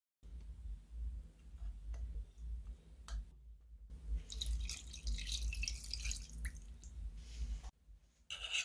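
Water pouring, splashing and dripping into a saucepan holding sardines, after a few light knocks. A short scrape or clatter comes near the end.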